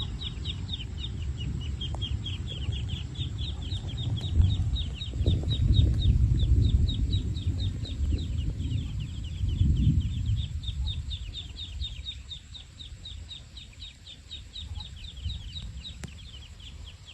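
A bird chirping in a fast, steady series of short, downward-slurred chirps, about five a second, over a low rumbling noise.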